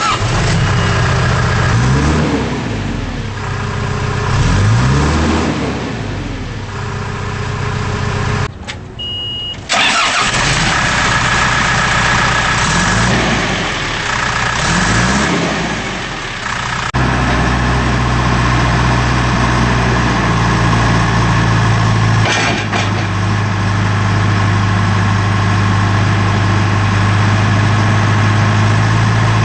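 John Deere 310J backhoe loader's diesel engine running, revving up and back down several times, then settling into a steady idle from a little past halfway.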